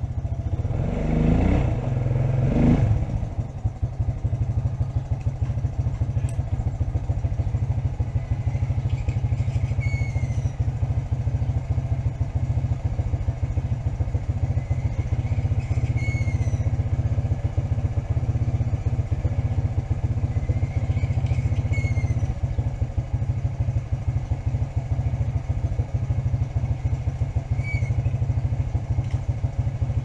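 Small engine idling steadily with a fast even beat, revved briefly twice near the start.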